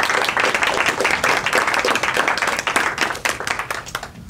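Audience applauding at the end of a lecture, a dense patter of hand claps that thins out near the end.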